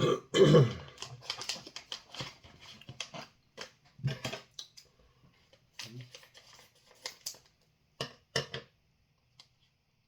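Irregular clicks and light rustles of things being handled close to the microphone, with a louder burst about half a second in.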